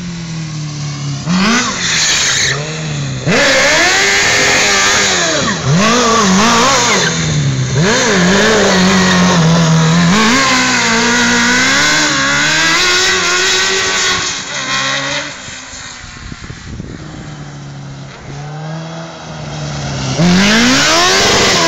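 Suzuki GSX-R 1000 inline-four motorcycle engine in a kart, loud and revving hard, its pitch rising and falling again and again as the kart accelerates and slows; it drops back for a few seconds past the middle, then climbs again near the end.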